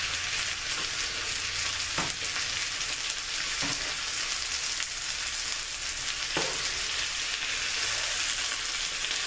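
Potatoes and onions frying in oil in a pan, a steady sizzle as they brown and crisp, with three faint clicks.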